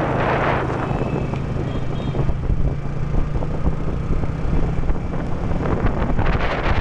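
Wind buffeting the microphone over a steady low engine hum from a moving vehicle, with gusts of hiss near the start and near the end.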